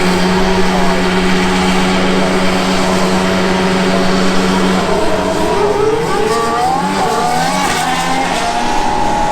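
Formula 1 cars' 1.6-litre turbocharged V6 hybrid engines during practice starts. One engine holds a steady high note for about five seconds, then several engines rise and fall in pitch as the cars pull away and accelerate.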